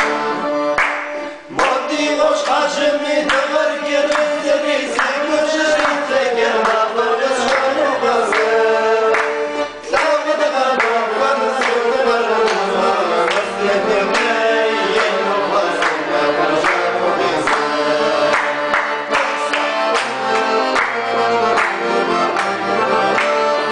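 Circassian (Adyghe) folk music: a piano accordion playing a lively tune, with hand claps keeping the beat and a man singing.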